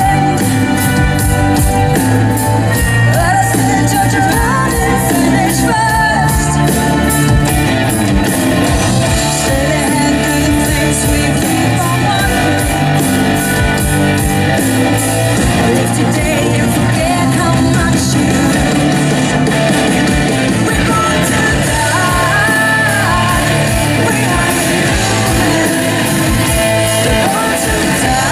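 A live symphonic metal band playing, with a woman singing lead into a microphone over electric guitar and the full band.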